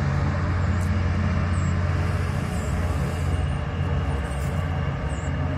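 Passenger hovercraft's engines and large rear propellers running with a steady low drone as it skims away offshore, growing slightly fainter near the end.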